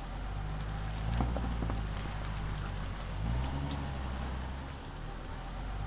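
Range Rover L405 engine running at low revs as the SUV crawls through rutted snow, the revs rising briefly and falling back about halfway through. A few crunches from the tyres on packed snow and ice.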